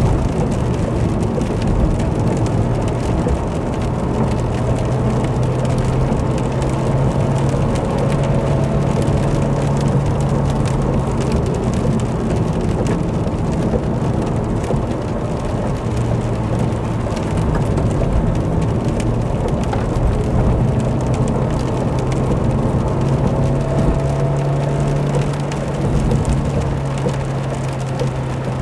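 Vauxhall Corsa driving on a wet road in the rain: a steady engine hum that shifts in pitch a few times as engine speed changes, under a constant hiss of tyres on wet tarmac and rain.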